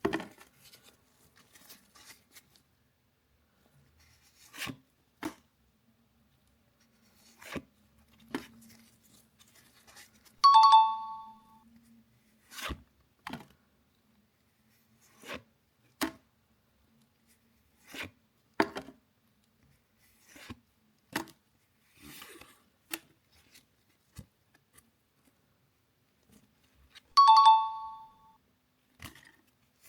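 Trading cards being handled: scattered short clicks and flicks of card stock, with a loud, short, bright chime sounding twice, about ten seconds in and again near the end.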